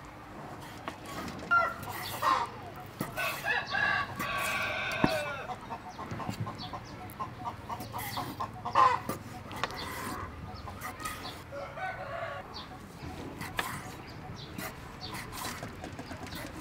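Chickens clucking, with a rooster crowing about three seconds in, over the sharp taps of a kitchen knife cutting clam meat on a wooden chopping block.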